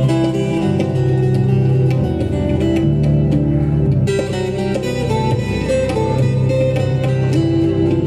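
Live band playing Indian light-classical or ghazal music, with acoustic guitar, tabla and keyboard carrying sustained melodic notes over a steady drum pattern.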